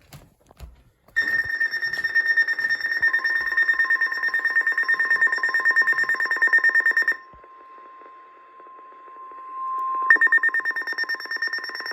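A weather alert radio sounds a flood warning. About a second in, its electronic alarm starts buzzing in rapid pulses. Underneath it, the steady one-pitch NOAA Weather Radio warning tone begins and carries on alone for about three seconds, before the pulsing alarm comes back near the end.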